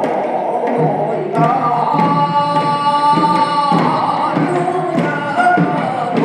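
Voices of elderly villagers singing a Korean traditional field song (deulsori), with long held notes and a few drum beats.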